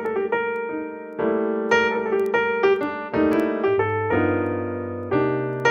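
Background piano music: notes and chords struck one after another, each fading, with lower bass notes coming in about two-thirds of the way through.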